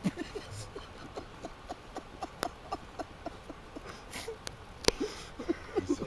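Short breath puffs blown into a smouldering tinder nest to coax a friction-fire ember into flame, over a run of small ticks about three a second and a few sharp clicks.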